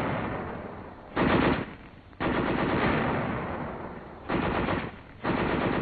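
Tank gunfire on an old, muffled film soundtrack: five bursts of machine-gun and gun fire, the longest near the middle fading out over nearly two seconds.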